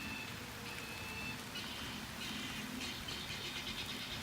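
Steady rain falling, with a high, pulsing trill from a chorus of small animals, insects or frogs, coming and going behind it.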